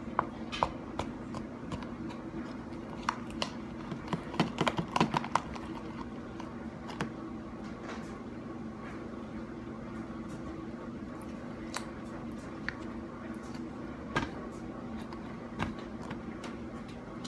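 Slime being kneaded and pressed by hand: scattered wet clicks and squelches, a quick cluster of them about four to five seconds in, over a steady low hum.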